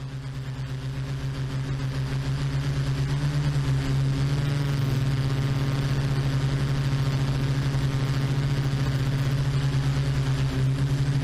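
Quadcopter drone's rotors running in flight: a steady hum that fades in over the first few seconds.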